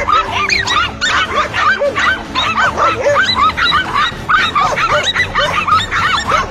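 Several dogs barking and yipping in a rapid, overlapping chorus, several barks a second, as they bay at a cornered lizard. Music plays faintly underneath.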